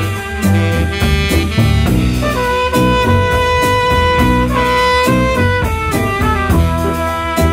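A roots-rock band recording, with a saxophone lead over steady drums and bass. The saxophone holds one long note for about two seconds, then moves through quicker, shorter notes.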